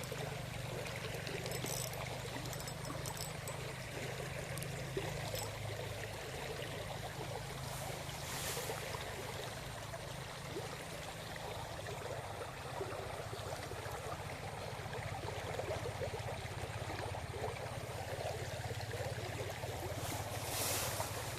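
Small mountain stream running steadily, an even rush of water with a steady low rumble under it.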